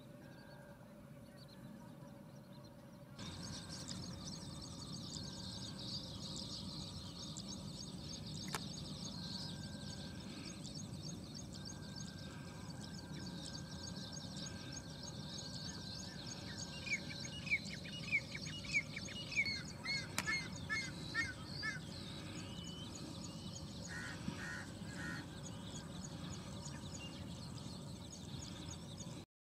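Yellow-wattled lapwing giving a run of sharp, descending calls, about three a second, for several seconds, then three short notes a little later. Behind it runs a steady high, fast ticking chorus in the outdoor background.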